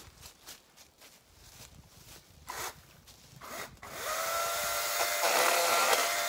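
Footsteps rustling through dry grass and leaves, then about four seconds in a Yardworks cordless battery chainsaw whirs up with a rising whine and runs at full speed with a steady high whine.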